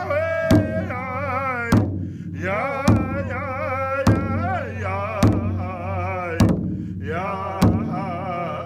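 Sun Dance song: voices singing a wavering melody over a drum struck slowly and steadily, about once every 1.2 seconds.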